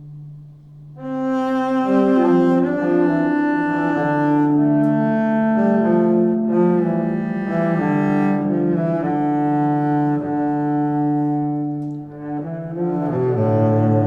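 Background music of slow, held string notes that change every second or so, starting softly and swelling about a second in.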